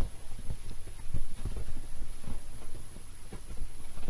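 Bengal kittens scampering and pouncing on a soft bed, their landings giving irregular soft, dull thumps, several a second at times.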